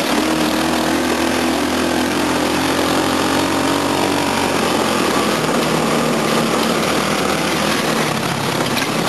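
Go-kart's 10 hp small engine running steadily under throttle, its pitch shifting slightly during the first few seconds.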